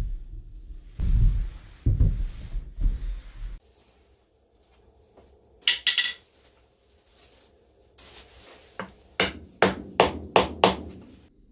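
Low knocks and rubbing of a wooden log being handled, then a run of about seven quick, sharp taps: a mallet striking a metal punch held on the log's end grain to mark its centre for turning.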